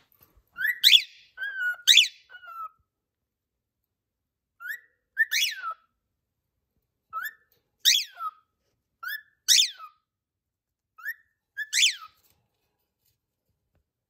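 Pet cockatiel whistling a repeated call about six times, each a short rising note followed by a loud falling whistle, roughly every two seconds.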